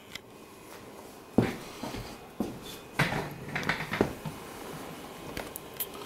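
A string of knocks and clunks from handling the metal server rack cabinet, the loudest about a second and a half in, over the steady hum of the rack's cooling fans.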